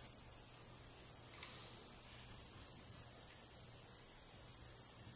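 Steady background noise: an even, high-pitched hiss with a faint low hum underneath, and no distinct events.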